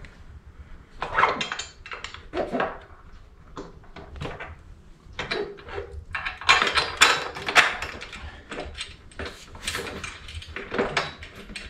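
Irregular small clicks, taps and scrapes of hand work on a motorcycle luggage-rack mount: a bolt, washers and a spacer being handled and refitted, busiest in the middle of the stretch.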